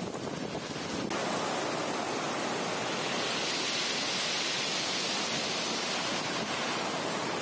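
Pacific Ocean surf washing onto a beach: a steady rush of breaking water that steps up about a second in and swells in the middle.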